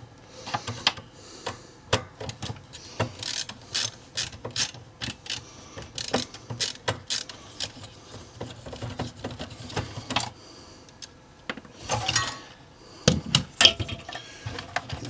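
Ratcheting screwdriver clicking in clusters of quick ratchet clicks while backing out screws, with short pauses between runs.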